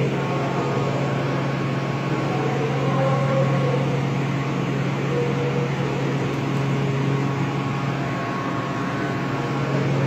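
Steady low mechanical hum, with faint wavering sounds in the middle range that come and go.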